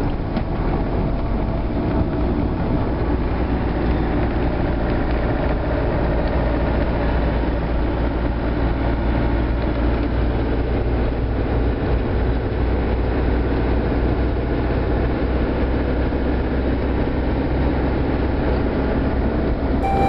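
Steady rumble of a vehicle on the move, heard from inside: continuous engine and road noise, heaviest in the deep low end, with no distinct events.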